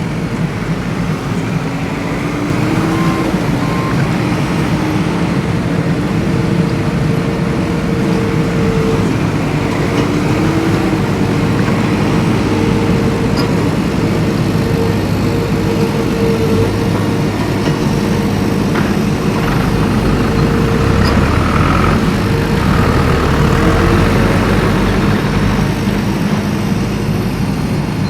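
A vehicle's engine running steadily under a rumble of driving noise, its pitch rising slightly a few times.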